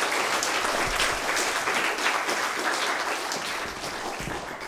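An audience applauding, with many hands clapping, fading a little towards the end.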